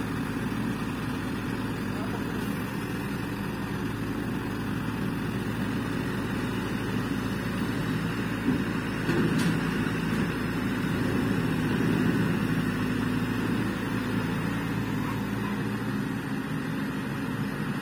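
Diesel engine of a tracked excavator running steadily under load as it lifts a prefabricated cabin on slings, louder for a few seconds about halfway through.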